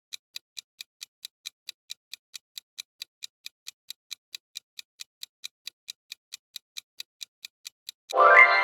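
Countdown-timer sound effect: a clock-like ticking at an even pace of about four to five ticks a second. Near the end it is interrupted by a loud rising tone.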